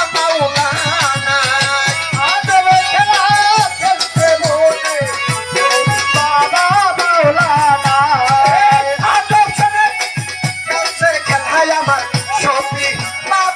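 Live Bangladeshi Baul-style folk music with no singing: a violin plays a wavering, sliding melody over fast, steady drum beats and a rattling shaker-like percussion.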